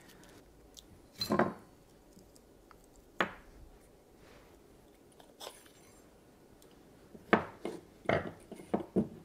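Metal and plastic parts of a homemade ultrasonic soldering iron clicking and clinking as it is pulled apart and pieces are set down on a wooden workbench. There are scattered single knocks, then several close together near the end.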